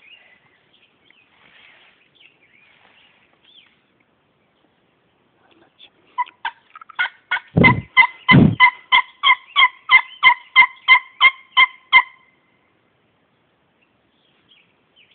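A long run of turkey yelps, about twenty evenly spaced notes at roughly three a second, starting about six seconds in and stopping about twelve seconds in. Two low thuds fall among the first notes.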